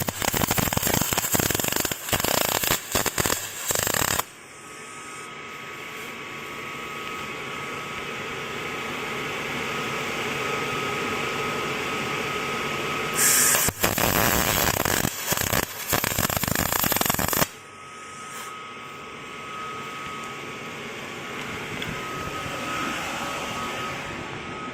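Electric arc welding on a steel antenna bracket: two bursts of crackling and sputtering arc, one of about four seconds at the start and another of about four seconds in the middle. Between them there is a quieter steady hum with a faint whine.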